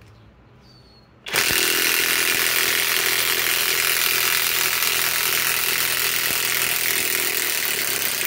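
SKIL mid-torque cordless impact wrench on speed 3 hammering steadily as it backs a long lag screw out of hardwood. It starts about a second in and runs evenly without pause.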